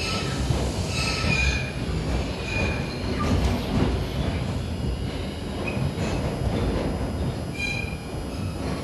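R142 subway car running on the track, heard from inside the car with its HVAC off: a continuous rolling rumble with several brief high wheel squeals, the strongest about a second in and near the end.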